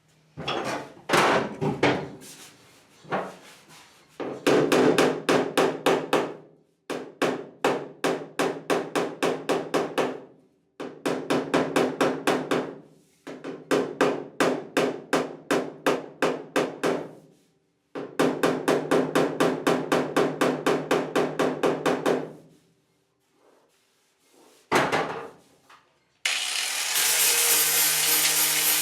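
Hammer tapping rapidly on the steel sheet metal of a pickup cab, about five ringing strikes a second in bursts of a few seconds with short pauses. Near the end a power tool starts and runs steadily.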